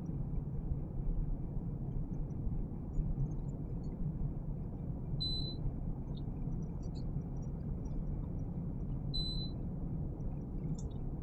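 Touch controls of a glass-top electric cooktop giving two short high beeps, several seconds apart, as they are pressed. The cooktop is stuck on its 'hot' warning and won't accept a new setting. A steady low hum runs underneath.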